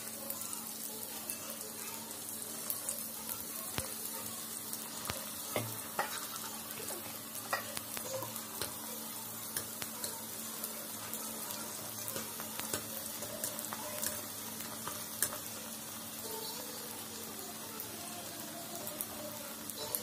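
Small puris deep-frying in hot oil in a wok: a steady sizzle with scattered crackles, as a wire spider skimmer stirs and presses them in the oil.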